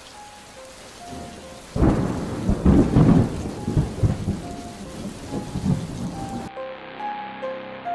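Steady rain with a sudden crack of thunder about two seconds in that rolls on in several peaks for four or five seconds, then cuts off abruptly near the end.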